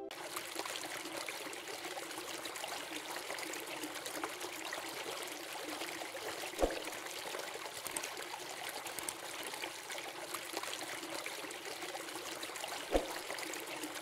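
Water from a garden fountain trickling steadily from its spout into a basin, with two brief, louder splashes or knocks, one about halfway through and one near the end.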